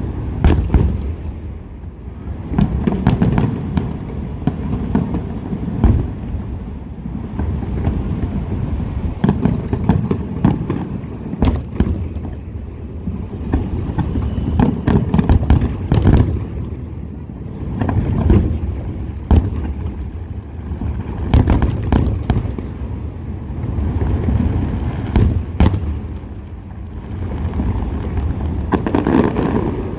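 Aerial fireworks display: shell bursts going off one after another with deep booms and sharp cracks, with no pause.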